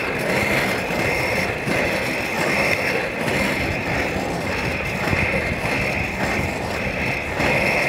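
Inline skate wheels rolling on an asphalt path: a steady rumble with a hiss that swells and fades about once a second.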